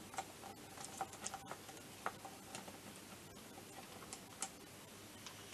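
Faint, irregular ticks and clicks of a screwdriver loosening a hose clamp.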